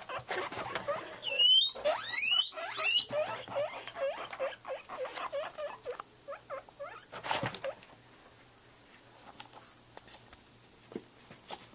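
Guinea pigs wheeking in excitement, begging for food: loud, high rising whistles between about one and three seconds in, then a run of shorter, quieter squeaks. A single knock comes about seven seconds in, followed by faint rustling of the wood-shaving bedding.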